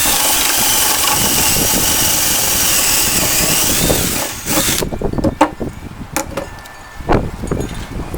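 Electric drill boring a hole through a wooden spacer block with a 1/2-inch paddle bit. It runs steadily for about five seconds and stops abruptly, followed by a few sharp knocks.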